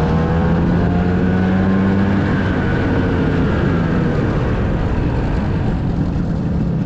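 1997 Vespa P200E's single-cylinder two-stroke engine running while the scooter is ridden, its pitch steady and then easing down a little a couple of seconds in.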